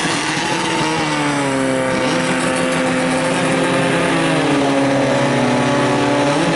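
Portable fire pump's small engine running flat out, rising in pitch during the first second and then holding a steady high note as it pushes water through the attack hoses.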